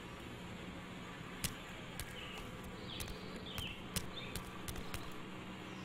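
Quiet garden ambience: a small bird gives short chirps several times, over a low steady hum with scattered sharp clicks.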